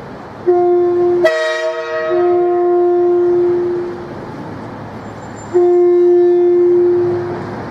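Train horns sounding in held single-note blasts: a short blast, then after an abrupt change a richer multi-note blast that settles into one note held for about three seconds, and a second held blast of about two seconds near the end, over a steady background rush.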